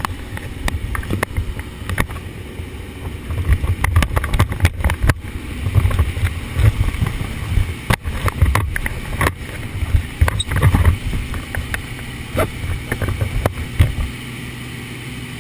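Steady drone of a small jump plane's engine heard inside the cabin, under heavy, uneven rumbling buffeting on the microphone and scattered knocks. About 14 seconds in the buffeting stops, leaving the even engine drone.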